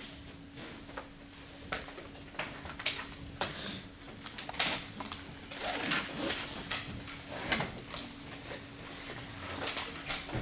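Chalkboard eraser wiping a blackboard in a series of irregular swishing strokes.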